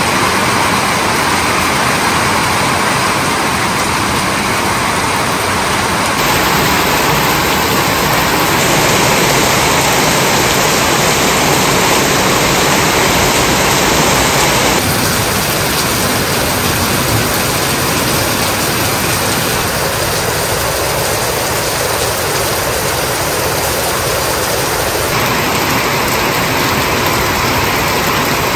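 Heavy tropical rain falling steadily on garden foliage, gravel and plant pots, a loud even hiss. Its tone changes suddenly three times as the shots change.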